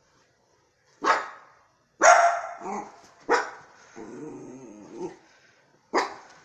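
Small dog barking four times in sharp, separate barks, with a low growl between the third and fourth. The dog is frightened of a lighter.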